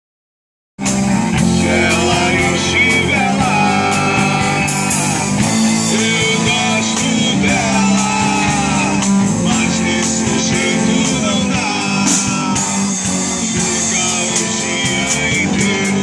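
Hardcore punk band playing live, kicking in about a second in: distorted electric guitars and bass over fast drumming with constant cymbal crashes, and a voice singing over the band.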